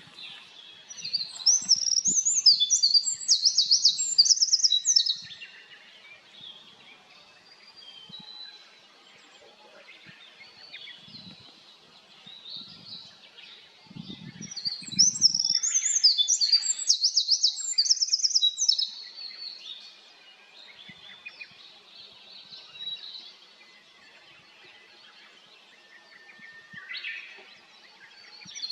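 Eurasian wren singing: two long, rapid, high-pitched songs of fast trills and notes, each about four seconds, one near the start and one about halfway through. Fainter birdsong carries on between them.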